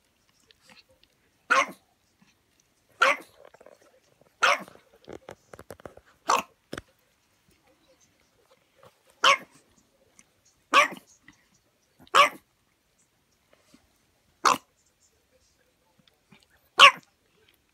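A dog barking: nine single, sharp barks, each a second or more apart, with a few faint clicks between the third and fourth.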